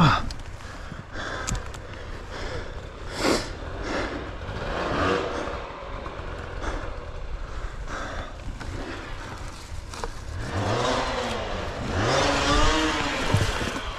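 Off-road dirt bike engine revving up and down over rough trail, with clattering knocks from the bike over the terrain.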